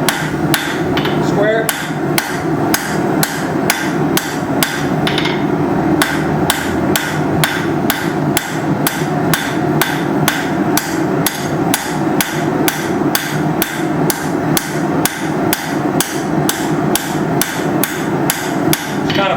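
Hammer striking hot steel bar stock on an anvil in a steady rhythm of about two and a half blows a second, rounding up the end of a drawn taper. A steady running noise sits underneath.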